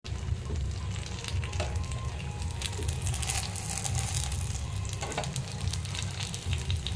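Thin patishapta batter crepe sizzling steadily on a hot oiled pan as it is rolled up with a metal spatula, with a few short clicks and scrapes from the spatula.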